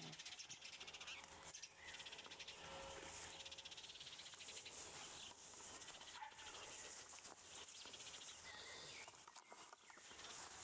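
Near silence: faint outdoor garden ambience with a few short, faint chirps scattered through it.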